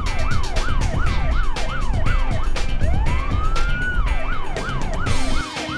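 Police car siren: a slow rising wail, then a run of quick up-and-down sweeps at about two and a half a second, the pattern repeating once. A heavy low rumble runs underneath.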